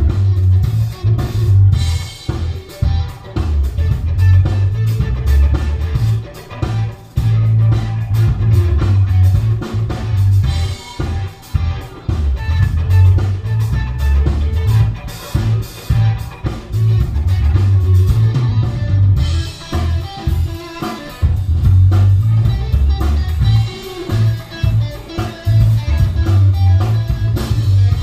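Live band playing: guitar, bass guitar and drum kit, with a heavy bass line, steady drum beat and cymbal crashes swelling in a few places.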